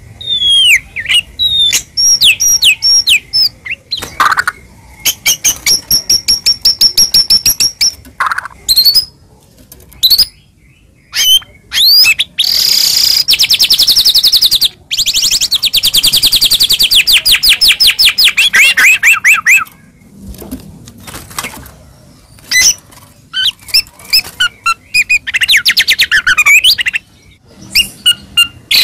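White-rumped shama (murai batu) singing a loud, full-repertoire song of varied phrases: quick runs of repeated whistled notes and a long, very fast trill in the middle that drops in pitch toward its end, broken by a couple of short pauses.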